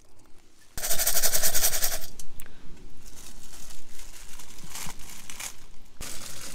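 Dried vegetables rattling in a metal camp pot as it is shaken, a rapid rattle lasting about a second, followed by small clicks and rustles. Near the end, water is poured from a bottle into the pot with a steady splashing hiss.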